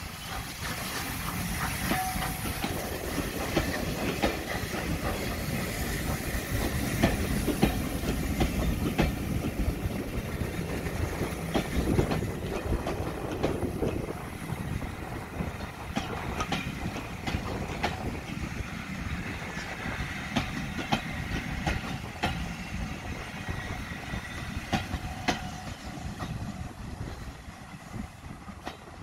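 The coaches of a steam-hauled passenger train rolling past close by, their wheels clicking and clattering over the rail joints. The sound eases off near the end as the last coach goes by.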